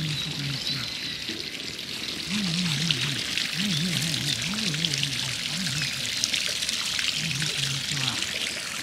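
Steady rush of running, pouring water, with a simple background music melody of short stepped notes coming and going beneath it.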